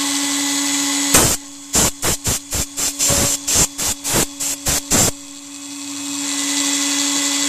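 Micro CNC router spindle running steadily with a hum and high hiss as the bit etches plexiglass. From about a second in, a rapid string of short air blasts from a blower, around fifteen over four seconds, clears the chips from the cut.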